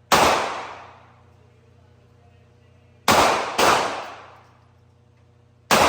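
Four gunshots from firearms on a shooting range, each with a short ringing decay: one at the start, two in quick succession about three seconds in, and one near the end.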